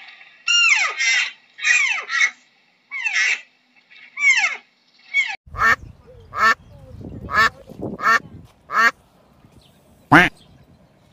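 A bird calling over and over, each call sliding sharply down in pitch. After about five seconds come shorter, sharper calls over a low background rumble, with a last single call near the end.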